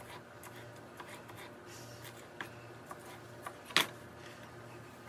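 Chef's knife tapping on a wooden cutting board while slicing bell peppers: a few soft scattered taps and one sharper knock near four seconds in, over a faint steady low hum.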